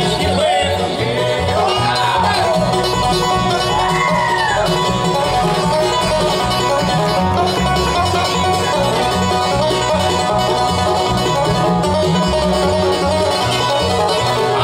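Live bluegrass band playing an instrumental break on fiddle, five-string banjo, mandolin, acoustic guitar and upright bass. Sliding fiddle phrases in the first few seconds, then the banjo steps forward to take the lead.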